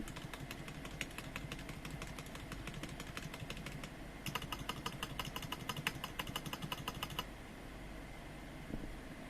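Typing on a Rexus Daxa M84 Ultimate mechanical keyboard with Gateron brown switches: rapid key clicks, with a short pause about four seconds in and a faster run after it. The typing stops about seven seconds in, leaving a steady low hum.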